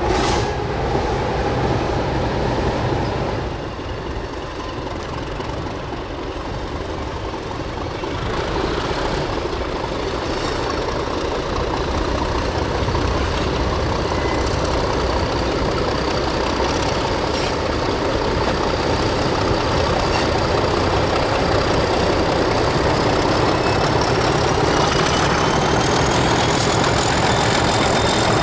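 English Electric diesel-electric locomotives running under power with a passenger train. At the start one is working hard, trailing exhaust smoke. After that the engine sound of an approaching train grows steadily louder, with a high whine rising in pitch near the end.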